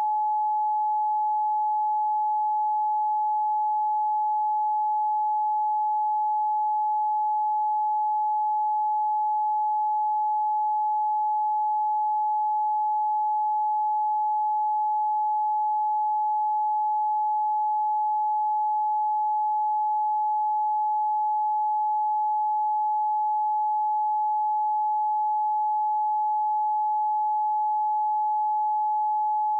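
A single steady pure tone, a little below 1 kHz, held unchanged at one pitch and one loudness throughout.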